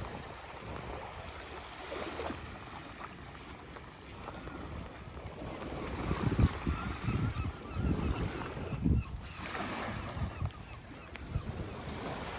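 Small waves washing onto a sandy shore, under wind buffeting the microphone. The gusts grow stronger and rumble loudest from about halfway through.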